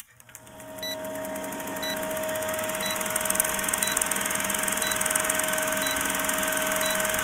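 Old film-projector countdown sound effect: a steady whirring hum with hiss, fading in over the first second, and a short tick about once a second as the leader counts down.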